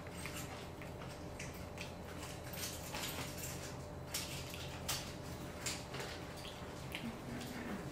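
Close-miked chewing and mouth sounds from eating a battered onion ring dipped in ranch: irregular wet clicks and soft crunches over a faint steady hum.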